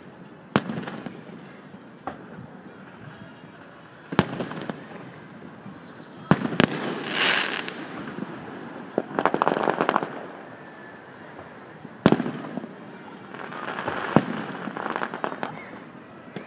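Aerial fireworks shells bursting with sharp booms every couple of seconds, mixed with stretches of dense crackling from crackle effects.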